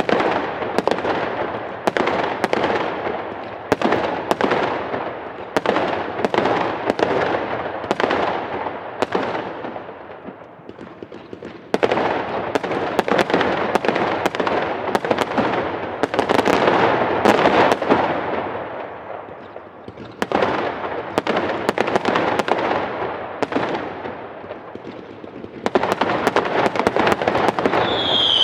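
Fireworks going off in a dense barrage of rapid cracks and bangs, swelling and fading in several waves, with quieter lulls about ten and twenty seconds in.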